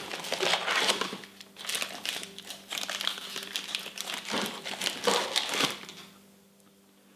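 Packaging of chocolate candies crinkling irregularly as it is torn open and handled by hand, stopping about six seconds in.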